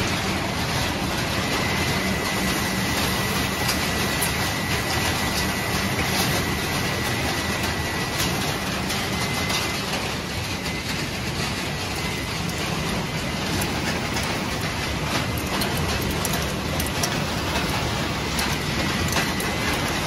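Refrigerator recycling line machinery running steadily: conveyors and a vibrating screen carrying crushed plastic and metal fragments, giving a dense even rattle with many small clicks. A faint high whine runs through roughly the first half.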